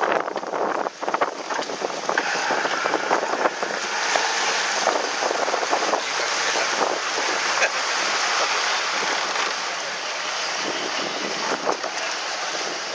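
Wind buffeting the microphone over the steady rush of water and waves around a moving umpire boat, with scattered small knocks and clicks.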